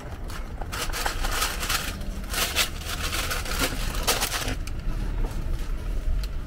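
Paper bag rustling and crinkling in irregular bursts as freshly baked taiyaki are bagged, over a low steady rumble.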